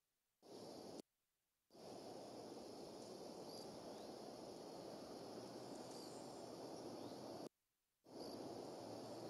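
Steady low rushing noise from an outdoor nest-camera microphone, with a few faint high chirps. The audio cuts out to dead silence twice near the start and once more near the end.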